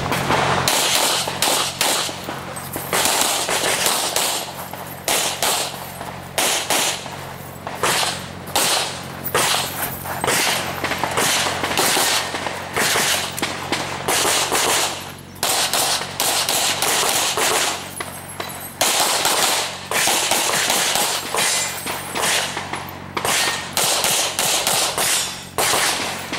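Rapid strings of handgun shots fired during a practical-shooting stage, often several a second, broken by pauses of a second or so as the shooter moves between positions and reloads.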